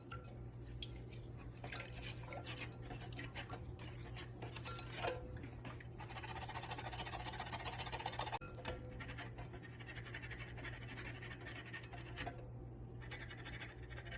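Scrubbing at the dirty, vinegar-soaked electrode of a Vicks vaporizer: irregular scratchy strokes, with a couple of seconds of faster, continuous scrubbing in the middle, over a faint steady low hum.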